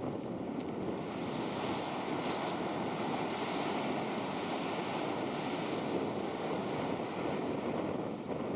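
Ocean surf breaking and washing ashore, a steady rushing hiss that swells about a second in, with wind buffeting the camcorder microphone.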